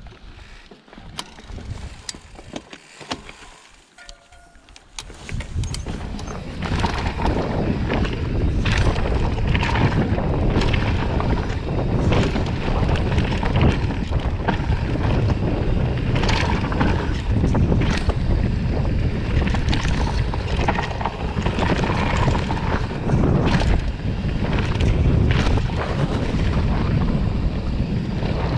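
Mountain bike riding down a dirt forest trail: wind buffeting the microphone and the tyres rumbling over the ground, with frequent rattles and knocks from the bike. It is quieter for the first few seconds and turns loud from about five seconds in.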